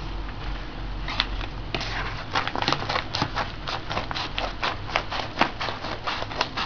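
Scissors cutting open a padded paper mailer: a quick run of crisp snips and paper crinkles, about three or four a second, starting about a second in.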